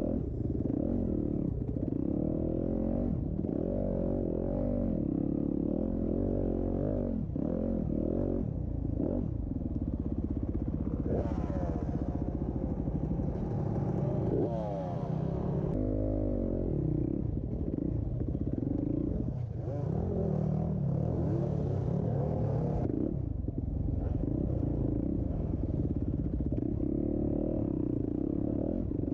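Motocross dirt bike engines revving up and down continuously, their pitch rising and falling as the riders work the throttle and shift.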